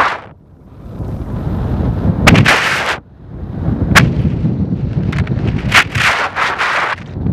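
Wind buffeting a camera microphone in flight under a tandem paraglider: a steady low rumble with several louder gusts, and a sharp crack about four seconds in.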